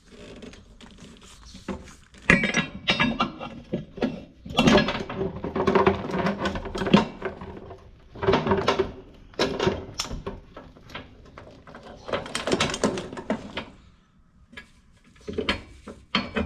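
Metal clanking and rattling as a tractor's hitch pin is worked loose and pulled from the drawbar to free a baler's hitch, in irregular clusters of knocks over several seconds.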